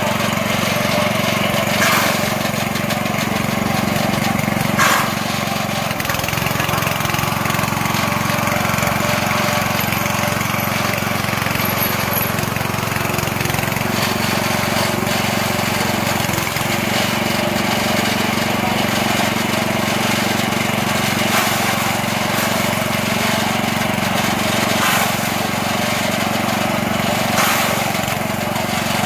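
Small 6.5 HP petrol engine running steadily under load, driving a chaff cutter's rotating blades as corn stalks and grass are fed in and chopped. A few sharp cracks stand out, about two and five seconds in and near the end.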